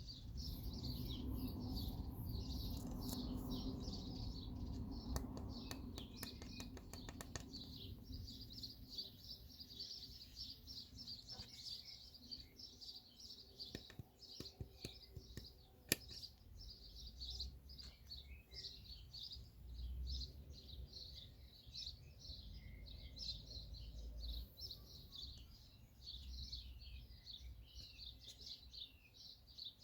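Small birds chirping steadily, many quick high calls throughout. Low handling rumble and a run of light clicks in the first several seconds, and one sharp click about halfway through.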